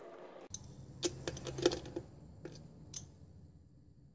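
A handful of small, sharp plastic clicks and taps as the MAP sensor's electrical connector is pushed onto the sensor and latched. The loudest click comes about one and a half seconds in, over a faint low hum.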